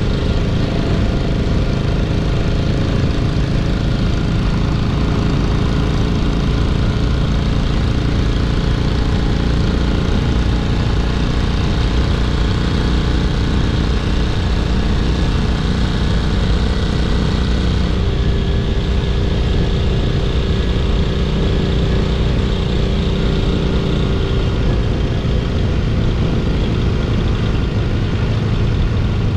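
Honda CA77 305 Dream's 305 cc four-stroke twin-cylinder engine running steadily while the bike cruises, heard close up from the bike with wind rush over it. The engine note shifts slightly about two-thirds of the way through.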